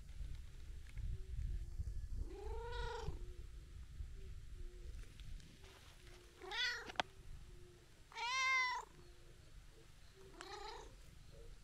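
Tabby-and-white cat meowing four times, each call rising then falling in pitch, the third call the loudest and longest. A sharp click comes just after the second meow.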